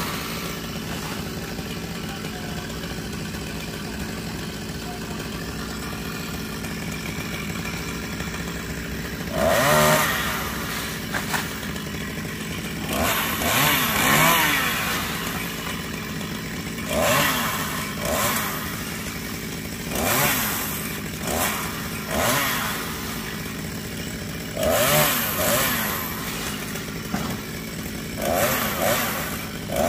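Chainsaw idling steadily for about nine seconds, then revved up again and again in short surges as it cuts into the top of a coconut palm.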